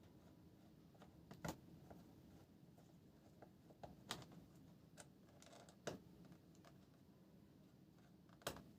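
Faint, scattered clicks and taps of a laptop being handled, with four sharper clicks spread a second or two apart and a short brush of noise midway.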